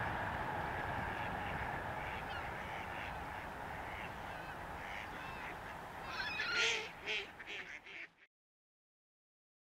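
Steady rumble of a passing train fading into the distance, then ducks quacking in a short run of calls about six seconds in. The sound cuts off to dead silence about two seconds later.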